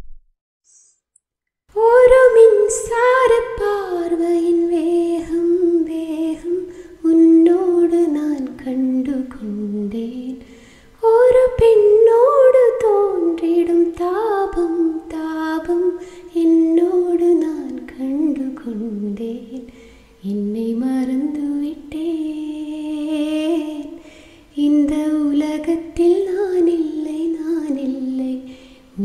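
A woman singing a Tamil film song solo, with no accompaniment. She sings long held phrases with gliding, ornamented pitch, starting about two seconds in, with short breaks between phrases.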